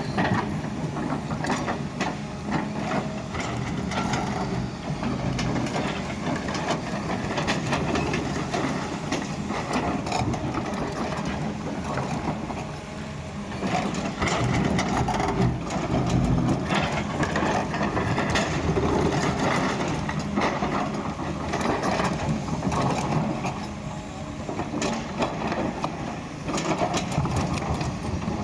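Doosan hydraulic excavator working: its diesel engine runs steadily under load, with frequent knocks and scraping as it digs.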